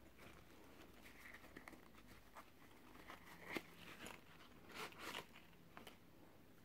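Faint rustling and scattered light clicks of hands handling a digital multimeter and its packaging.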